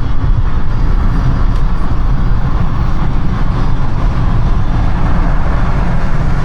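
Steady road and engine rumble of a car driving through city traffic, heard from inside the cabin, with the weight in the low end.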